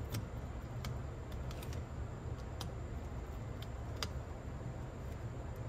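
Small screwdriver working a screw into the cassette transport mechanism: a few scattered light metal clicks and ticks, the sharpest about four seconds in, over a steady low hum.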